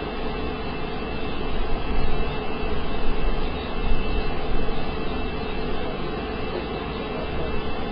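EuroProp International TP400-D6 turboprop engine running on a test run: a steady rushing noise with two held whining tones, one mid and one high, swelling and easing slightly in loudness.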